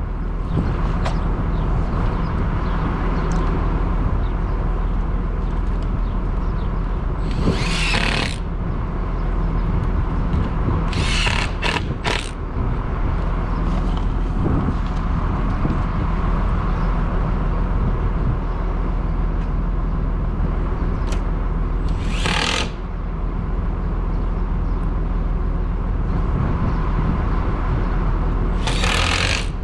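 Payloader engine running steadily, while a power driver sends screws through plastic sheeting into the barn wall in several short bursts of about a second each.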